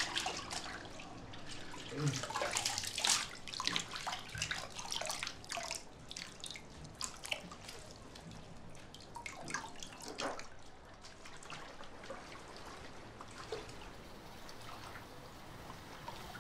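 Bathwater splashing and dripping as someone washes in a bathtub: irregular splashes, busiest in the first few seconds and again around ten seconds in, thinning to fainter drips near the end.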